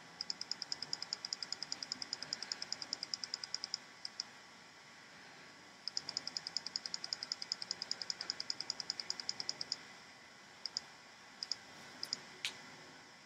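Rapid, even clicking from the swing-analysis computer's controls as the swing video is stepped forward frame by frame: two runs of about eight clicks a second, each lasting about four seconds, then a few scattered single and paired clicks.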